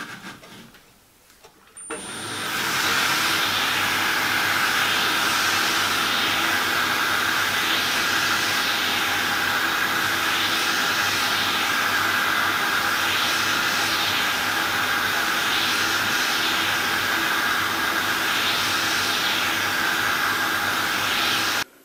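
Lathe running with a slit plastic-pipe lap, charged with lapping compound, spinning inside a miniature steam locomotive cylinder bore: a steady whirring with a high whine, swishing louder about every two and a half seconds as the cylinder is worked back and forth along the lap. It starts about two seconds in and cuts off suddenly just before the end.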